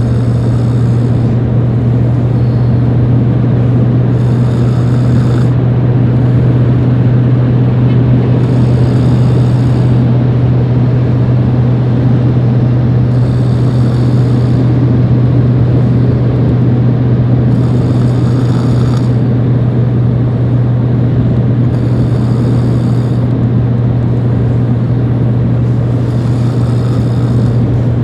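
Truck engine idling with a steady low hum. A higher hissing sound, each about a second and a half long, comes back roughly every four and a half seconds in a snoring rhythm.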